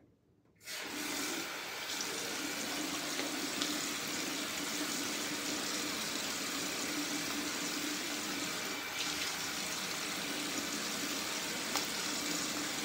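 Bathroom tap running steadily into a sink, starting abruptly about half a second in, while the face is wetted before lathering for a shave.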